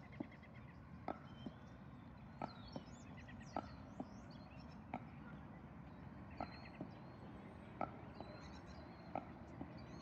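Footsteps at a steady walking pace, short sharp steps about once a second, with small birds chirping and a low steady background hum.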